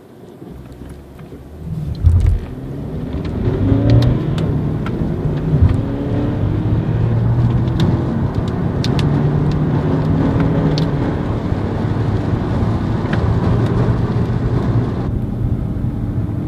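VW Golf 6 four-cylinder turbodiesel (TDI) accelerating hard from a standstill, heard inside the cabin. The engine note swells about two seconds in, then climbs in pitch and drops back at each of several gear changes.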